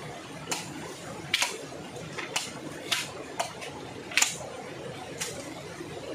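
A machete chopping bamboo: about nine sharp, irregular chops, a few in quick pairs, over a steady low hiss.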